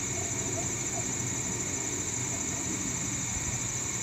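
Laser engraver running an engraving job: the NEJE laser module's fan and the rotary turntable's stepper motors make a steady hum, under a constant high-pitched tone.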